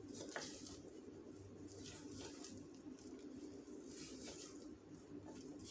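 Faint soft scraping of a spatula stirring a thick batter in a stainless steel bowl, a few strokes, over a low steady hum.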